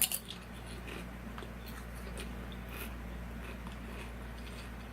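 Potato chips being chewed: a sharp crunch right at the start, then faint, scattered crunching over a steady low hum.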